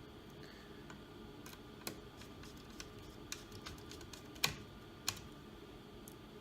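Scattered light clicks and taps of small laptop parts being handled and fitted back together, about a dozen in all. The sharpest click comes about four and a half seconds in, with another half a second later.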